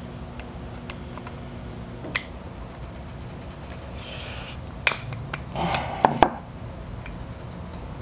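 Scattered small sharp clicks and taps with a couple of brief scrapes, the loudest clicks about five and six seconds in, as the plastic and metal parts of a smartphone are pried and handled during disassembly, over a steady low hum.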